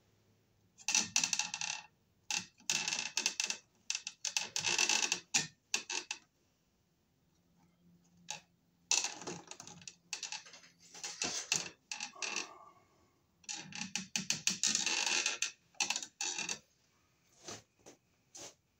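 Hand tools working on insulated electrical wires at a plastic box: bursts of clicking, snipping and rustling as the wires are clipped and handled with cutters, with a quiet pause in the middle.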